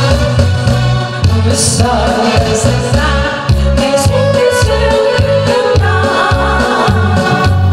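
A woman singing a Korean song into a microphone over backing music with a steady, regular low beat.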